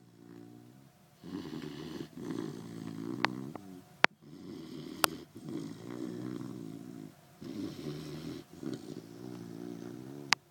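Sleeping puppy snoring loudly: a run of rattling snores, each about one to two seconds long with short pauses between. A few sharp clicks stand out above the snoring, the loudest near the end.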